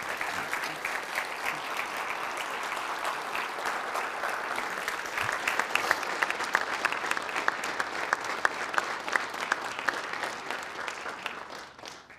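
Large audience applauding, with a few louder single claps standing out in the middle, fading out near the end.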